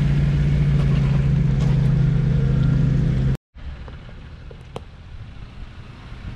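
Jeep Wrangler JL's 3.6-litre V6 running steadily at low revs, crawling in first gear with no added throttle. The sound cuts off suddenly about three and a half seconds in, leaving much quieter faint background noise with a few small clicks.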